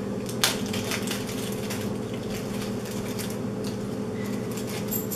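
Small plastic parts bag crinkling and crackling as fingers work it open to get the screws out, with a sharper crackle about half a second in. A steady low hum runs underneath.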